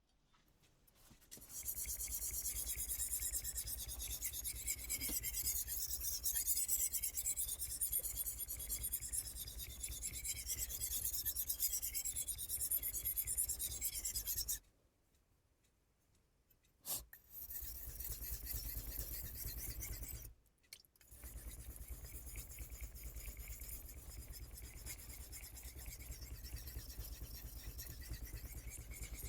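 A Kai Shun VG-10 knife blade being honed on the 3000-grit side of a Solicut combination whetstone: a steady, wet scraping of steel rubbing across the stone. It stops for a couple of seconds about 15 s in and briefly again near 20 s, then carries on.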